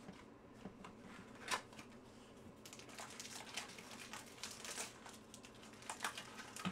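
Foil-wrapped trading card packs from a 2021 Chronicles Draft Picks hobby box crinkling as hands lift and shuffle them: a string of short crinkles, the loudest about a second and a half in.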